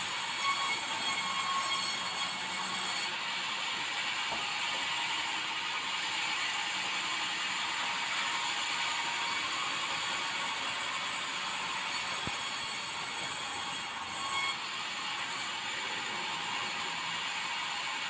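Vertical band sawmill sawing bengkirai hardwood boards: a steady, hissing sawing noise.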